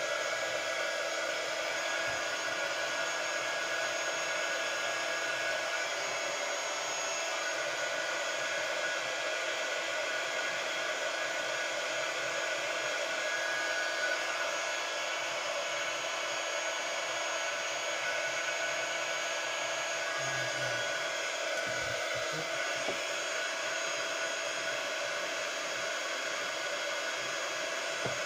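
Handheld embossing heat gun running steadily, blowing hot air to melt embossing powder on stamped cardstock: a steady fan whir with a faint motor hum.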